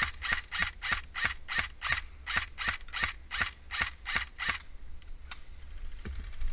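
Airsoft gun firing a string of about fourteen single shots at an even pace of roughly three a second, each a sharp snap, stopping about four and a half seconds in.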